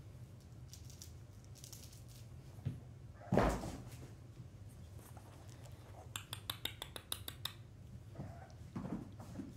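Kittens playing with tossed toys on a wooden floor: one thump a little over three seconds in, then a quick run of about ten light clicks past the middle, over a steady low hum.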